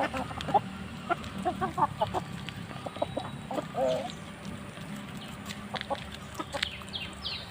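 Parrot-beak Aseel chickens clucking in a run of short calls, with a few clicks, and a few high falling chirps near the end.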